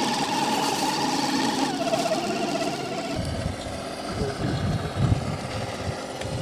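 Electric motor and gearbox of a radio-controlled crawler whining as it drives, the pitch stepping down about two seconds in and fading out near the middle. After that come irregular low rumbles and thumps.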